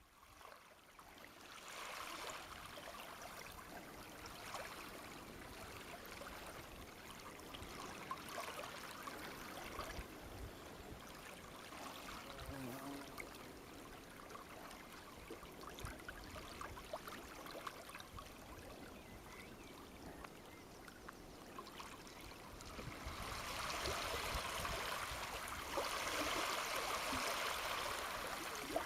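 Stream running and trickling over stones, a steady babble that swells louder over the last few seconds.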